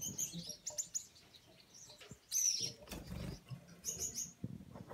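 Gouldian finches chirping in short, high-pitched notes, a few quick ones at a time, with one louder chirp about two seconds in. A soft flutter of wings sounds in the middle.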